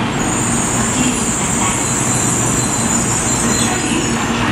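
Tōkaidō Shinkansen N700S train rolling along the platform as it pulls in to stop, a steady rumble with a high-pitched squeal that sets in just after the start and fades near the end.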